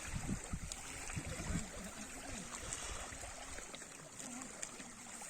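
Sea water gurgling and lapping against a kayak's hull, with low rumbling knocks in the first few seconds that then fade out.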